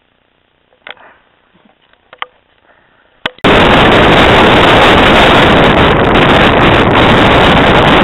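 A few faint clicks, then about three and a half seconds in a sudden, very loud, steady rushing noise that carries on without a break.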